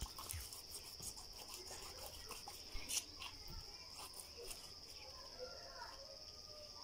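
Steady high-pitched chirring of crickets, with scattered knocks from a knife cutting fish on a wooden board. The loudest knock comes about three seconds in.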